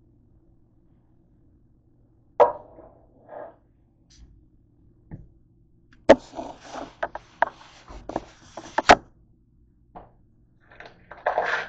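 Knocks, clicks and rustling of things handled on a kitchen counter: the recording phone moved and set down, with a dense clatter in the second half and a single tap as a plastic tub is put down near the end.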